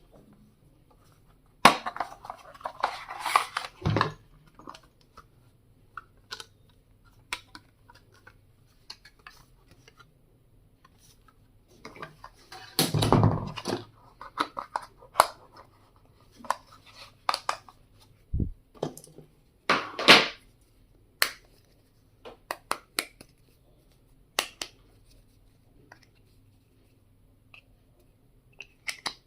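Stationery being unboxed and handled: scattered sharp clicks and taps of hard items set down and moved about, with longer rustling stretches about two to four seconds in and again around thirteen seconds in.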